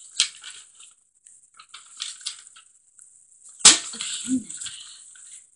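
Sheets of paper rustling and being shuffled on a wooden table, in short scattered bursts, with a louder sudden thump or crumple about three and a half seconds in.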